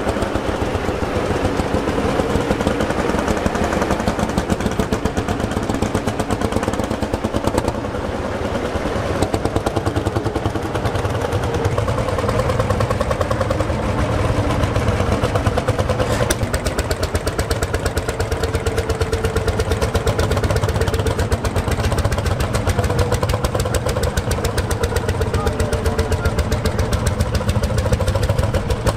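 Single-cylinder hot-bulb engines of Lanz Bulldog-type vintage tractors, an Ursus among them, running with a fast, even beat.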